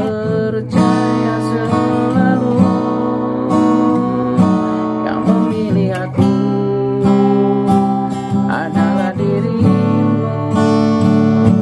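Acoustic guitar strumming chords, a song's instrumental outro without singing.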